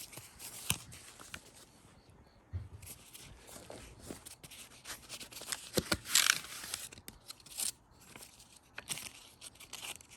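Packaging being handled and unwrapped by hand: paper and wrapping rustling and tearing, with scattered light clicks and knocks and a denser stretch of rustling about six seconds in.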